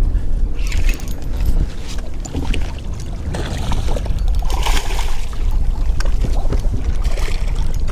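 Wind buffeting the microphone, with splashing about halfway through as a hooked smallmouth bass thrashes at the surface beside the boat.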